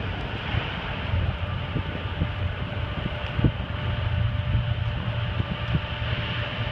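Distant military transport aircraft engines running on the airfield: a steady drone with a thin held whine over it.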